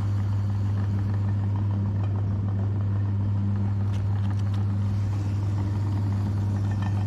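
Electric meat grinder's motor running with a steady low hum, with a few faint clicks about four seconds in.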